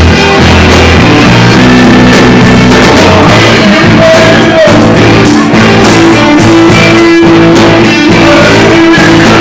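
Live blues band playing loud, with electric guitar most prominent over bass and drums, recorded close to full scale.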